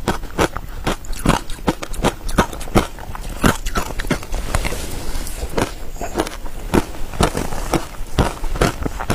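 Crunching of ice mixed with matcha powder being chewed, close to the microphone: rapid, irregular sharp crackling crunches.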